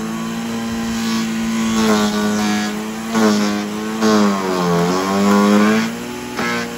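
Small electric wood chipper-shredder running loaded. Its motor hum sags in pitch each time branches are pushed in and then climbs back, several times, with a few sharp knocks near the end. The machine is struggling to chew the material, which the owner suspects is down to worn blades.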